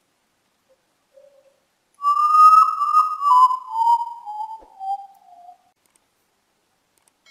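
Common potoo (urutau) singing one mournful whistled phrase: a run of clear notes that starts high and falls step by step over about three and a half seconds.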